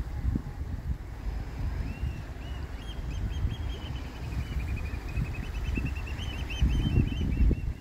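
Wind buffeting the microphone over low surf. From about two seconds in, a bird calls in a long, rapid run of high, wavering notes that carries on to the end.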